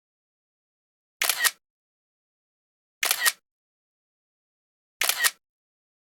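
Camera shutter sound from a drone's control app, clicking three times at even two-second intervals as the drone takes a run of still photos. Each shutter sound has a quick double click.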